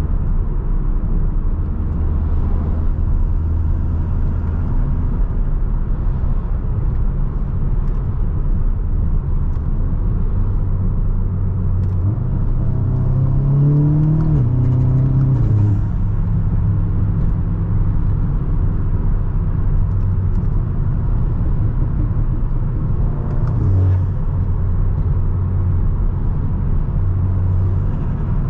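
Audi S3's turbocharged 2.0-litre four-cylinder, on an Integrated Engineering Stage 2 tune with aftermarket intake, turbo inlet and downpipe, running at a steady cruise over road noise. About halfway through it revs up, rising in pitch, then drops back.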